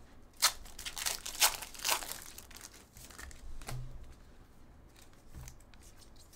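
Foil trading-card pack being torn open, the wrapper crinkling and crackling with three sharp crackles in the first two seconds, then softer rustling as the cards are slid out and fanned through.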